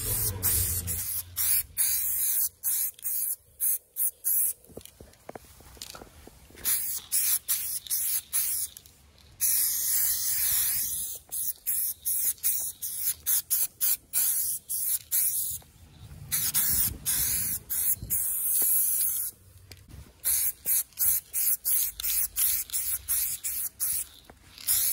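Aerosol spray-paint can hissing in many short bursts, with a few longer sprays lasting a second or more.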